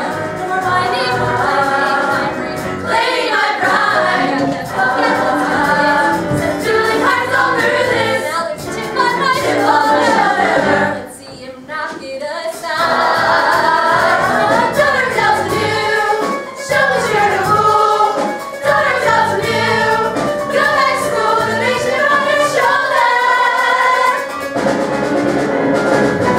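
Live musical-theatre number: a female lead singing with a group of women's voices joining, over a live band with drums and keyboard. The music dips briefly about halfway through.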